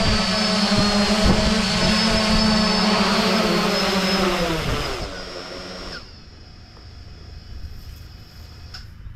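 Holybro X500 V2 quadcopter's four electric motors and propellers running at a steady hover hum. About five seconds in, the drone is down, and the motors wind down with a falling pitch until they go quiet.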